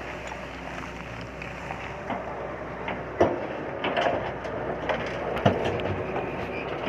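Hyundai 215L crawler excavator working, its diesel engine running steadily under load as the bucket digs and lifts earth and rubble. Several sharp knocks and clanks from the bucket and the earth come about three seconds in, again near four seconds and near five and a half seconds.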